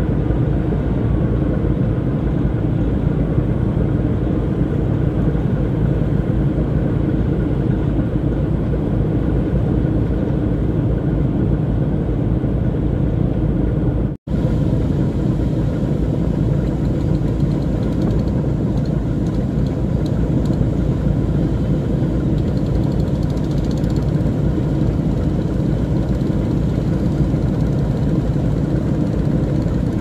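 A river boat's engine running steadily with a low, even hum. It cuts out for an instant about halfway through.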